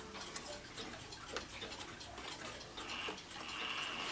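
Haller 8-day oak mantel clock ticking quickly and evenly. About three seconds in, a faint high whir joins the ticking as the minute hand is turned at the dial.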